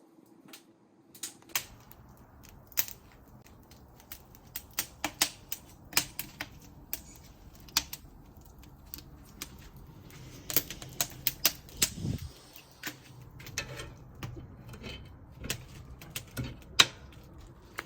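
Firewood crackling in a freshly lit fireplace firebox: irregular sharp cracks and pops, some loud, over a low steady rumble.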